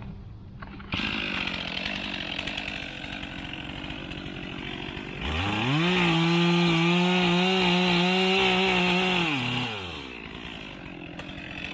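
Chainsaw idling, then revved up to full throttle about five seconds in, held steady for about four seconds, and let back down to idle.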